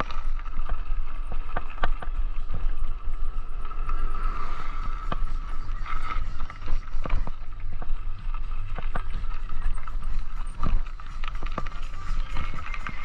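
Bicycle riding at speed: a steady rumble of wind and road vibration on the microphone, with frequent sharp knocks and rattles over bumps and a steady thin whine throughout.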